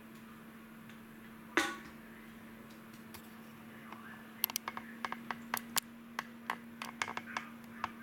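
A single ringing clunk, then an irregular run of about fifteen sharp clicks and clinks of hard objects being handled, over a steady low hum.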